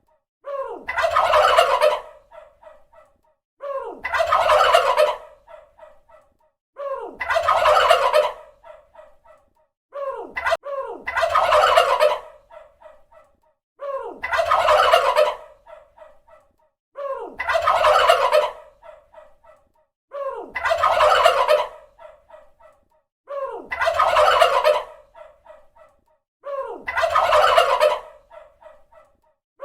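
Turkey gobbling again and again, one gobble about every three seconds. Each call is a loud, quavering burst that trails off in a quick rattle.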